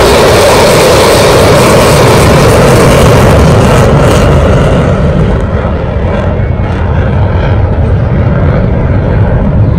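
Fighter jet flying past, a loud jet roar. The high hiss fades away about halfway through, leaving a low rumble as it moves off.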